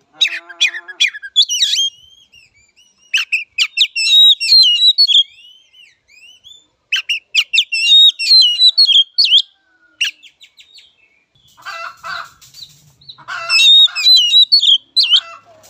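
Oriental magpie-robin (kacer) singing in about five bursts with short pauses between them, mixing clear varied whistled notes with rasping chatter.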